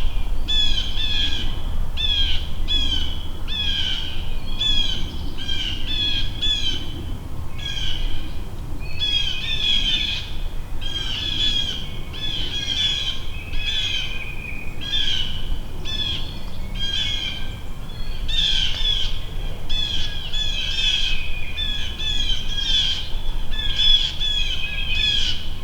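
Songbirds singing continuously: a dense run of short, high, down-slurred chirping notes repeating several times a second, over a faint low rumble.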